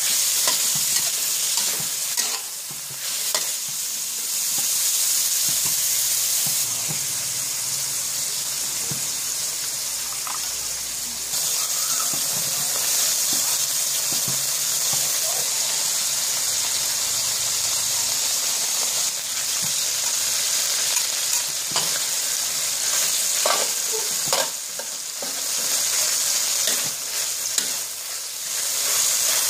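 Food sizzling steadily in hot oil in a wok while a metal spatula stirs and scrapes it, with scattered sharp clicks of the spatula against the pan.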